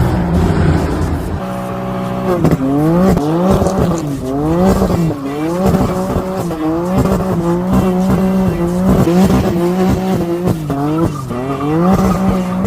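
Performance car engine revving hard over and over, its pitch climbing and falling back in quick repeated sweeps, at first several rises within a couple of seconds and then longer, slower ones.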